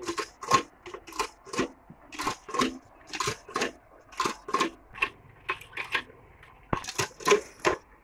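A bull drinking from a metal bowl, sucking and gulping water in short, sharp slurps about two to three times a second.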